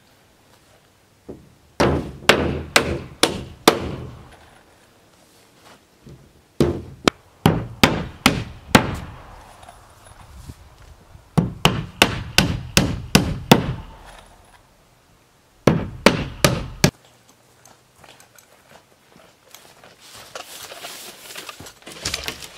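Hammer driving nails through OSB wall sheathing into wooden framing, in four runs of quick blows with pauses between. Near the end a softer rustling scrape as a large OSB sheet is handled against the wall and brush.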